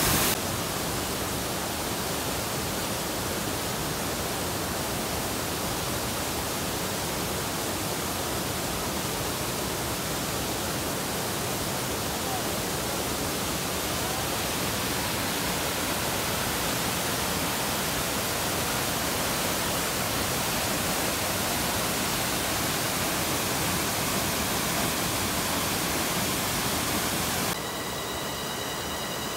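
Steady rush of a fast-flowing mountain stream, even and unbroken, dropping slightly in level near the end.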